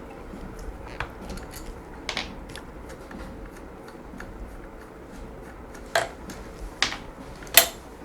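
A few scattered sharp clicks and taps from handling the parts of a sewing machine's shuttle race as it is opened up, with the loudest clicks in the last two seconds.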